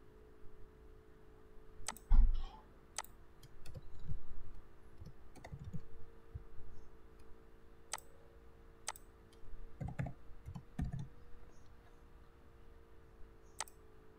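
Computer mouse clicks and short runs of keyboard typing, coming as scattered sharp clicks, with a few dull low thumps on the desk, the loudest about two seconds in. A steady low hum runs underneath.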